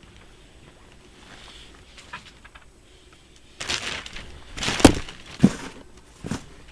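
Rummaging through belongings: after a quiet start, about halfway through there is a spell of loud crinkly rustling with several sharp knocks, as items are pushed around and handled.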